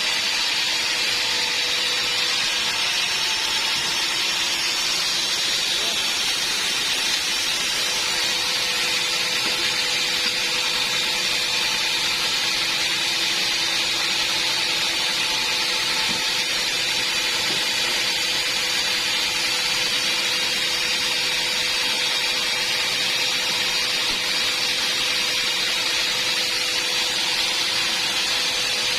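Band sawmill running steadily, its even machine noise holding unchanged throughout with a steady hum underneath.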